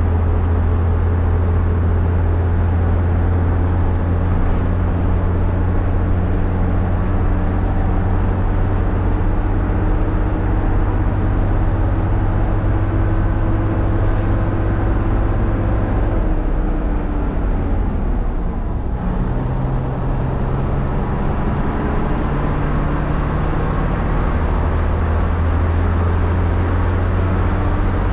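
Leyland Leopard bus's Leyland 680 11.1-litre diesel engine running steadily while the bus is under way. About sixteen seconds in the engine note slides down, then builds up again from about nineteen seconds.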